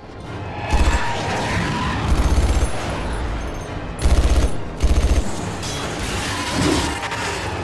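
Action-film soundtrack with several bursts of rapid automatic gunfire.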